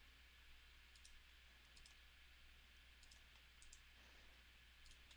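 Faint computer mouse clicks, often in pairs, about once a second, over a low steady hum: near silence otherwise.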